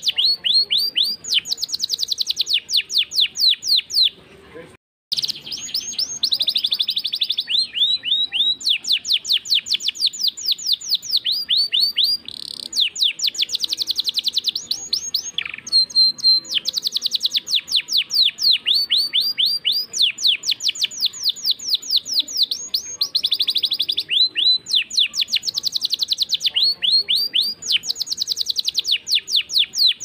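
Domestic canary singing a long, loud song of rapid trills: trains of quick repeated down-slurred notes, one phrase after another, with a brief silence about five seconds in.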